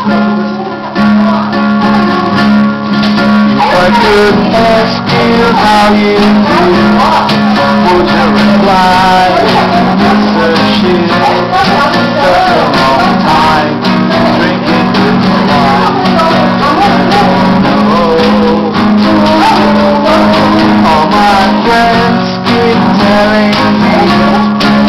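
Nylon-string acoustic guitar strummed steadily, with a voice singing along.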